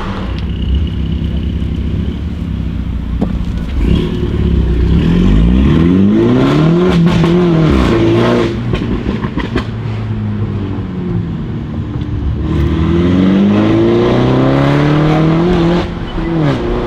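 Mini Cooper S F56's turbocharged four-cylinder with a decat Fi straight-pipe exhaust, heard from inside the cabin. It pulls away gently, then accelerates hard twice, the engine note rising and dropping back at each upshift, with short cracks from the exhaust as the revs fall.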